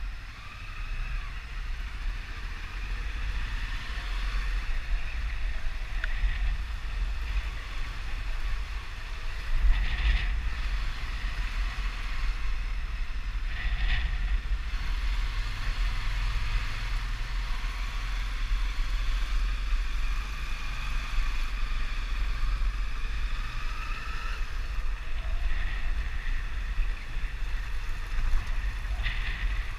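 Motorcycle riding along with its engine running, heavily mixed with wind buffeting on the microphone.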